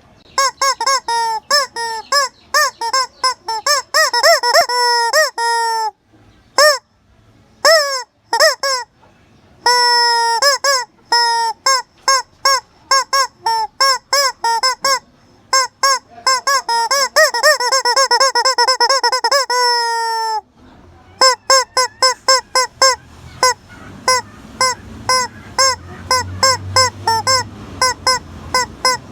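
A chicken making loud, honking squawks in quick succession, several a second, with some longer drawn-out calls in the middle. After a brief break about two-thirds through, the calls go on over a low rumble.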